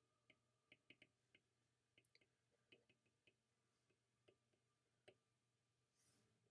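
Very faint, irregular clicks of a stylus tapping on a tablet's glass screen while handwriting, about a dozen of them, over near silence.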